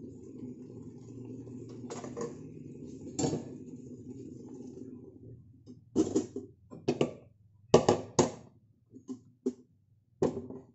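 A steady low noise from a pot of coconut-milk stew cooking on an electric hob, which stops about five seconds in. Then a stainless steel pot and its lid clank and knock several times as the pot is lifted off the burner and set back down.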